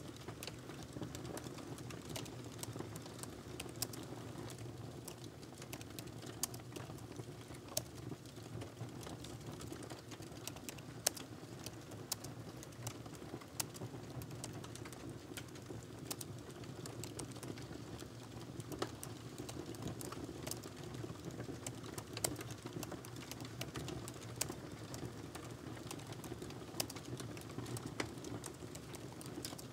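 Steady typing on a laptop keyboard: quick, irregular key clicks with a few louder key strikes, over a steady low hum.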